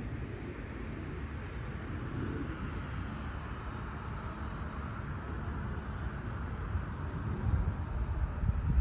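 River water running as a steady rushing hiss, with a low rumble underneath that grows louder near the end.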